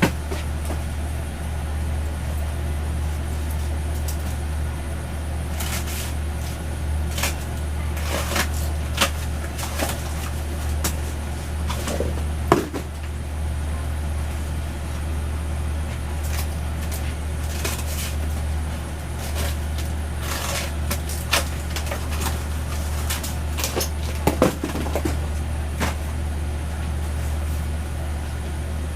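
Steady low hum with scattered clicks, rustles and knocks from cardboard boxes and packaged fidget toys being handled and set down.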